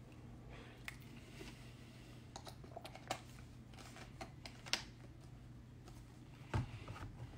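Scattered light clicks and taps from handling close to a phone's microphone, over a low steady hum, with a heavier knock about six and a half seconds in.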